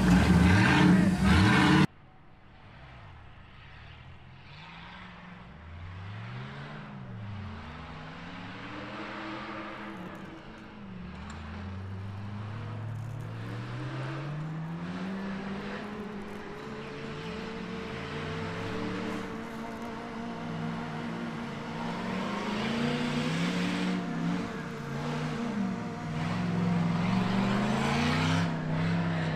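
Off-road race buggy engine revving up and down over and over as it climbs, faint at first and growing steadily louder as it approaches. For the first two seconds a louder engine runs close by, then cuts off suddenly.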